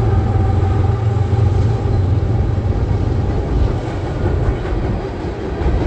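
Freight cars of a grain train rolling across a steel trestle bridge: a steady, loud low rumble with wheel-on-rail noise. A droning engine tone from the diesel locomotives ahead dies away within the first second.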